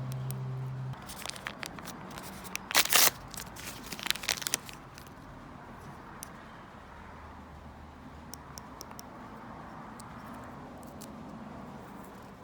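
Plastic packaging crinkling and tearing as a mystery capsule's contents are unwrapped by hand, in a burst of crackles loudest about three seconds in, followed by a few faint ticks.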